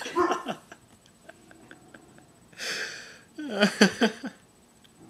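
A woman with a long-lasting bout of hiccups: a short voiced sound at the start, a loud breath about two and a half seconds in, then a quick run of short voiced sounds near the end.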